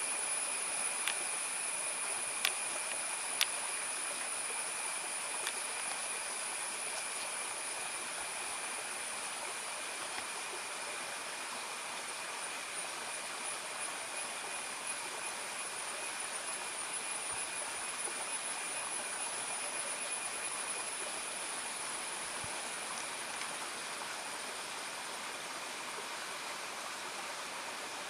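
Steady forest ambience: an even hiss with a high, steady whine on top. A few faint clicks come in the first few seconds.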